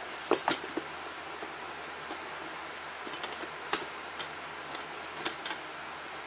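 Scattered clicks and knocks of a Targus TG-6660TR camcorder tripod being handled and set up, a few close together at the start and single sharper ones later, over a steady background hiss.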